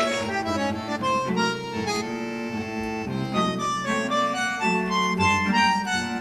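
Background music: a melody of held instrumental notes that change about every half second over a steady accompaniment.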